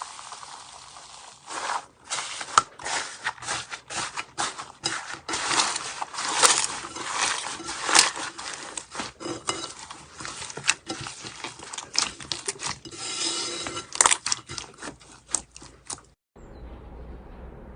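Slime being squeezed and worked by hand, giving a rapid, irregular run of crackling clicks and pops. It cuts off suddenly near the end and gives way to a quiet steady background.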